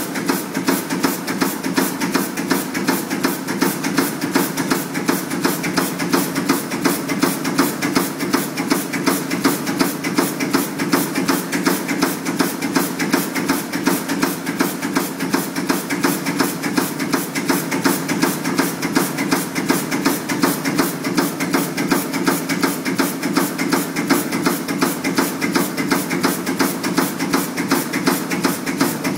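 PCB auto insertion machine working: its insertion head strikes parts into the board in rapid, evenly spaced clicks, several a second, over a steady machine hum.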